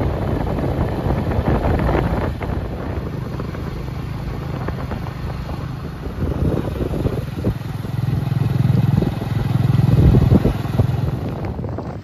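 Motorcycle engine running while riding, with wind on the microphone; the engine swells louder about eight to ten seconds in.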